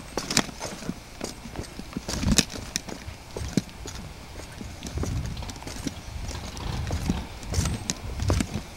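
Irregular knocks, taps and scrapes of boots and hands on rock while scrambling over boulders, with a low rumble on the microphone.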